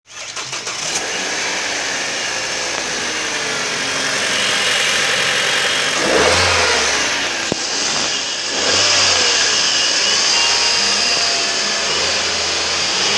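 Mahindra XUV500 2.2-litre engine running in a test. It is revved up briefly twice, about six and nine seconds in, and otherwise runs steadily, tested as good.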